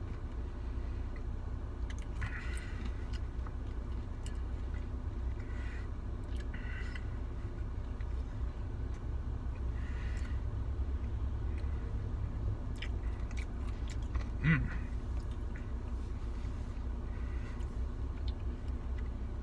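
A person eating a spoonful of soft-serve Blizzard with Reese's Pieces: quiet chewing and spoon sounds, and a brief hummed "mm" about two-thirds of the way through, over a steady low hum.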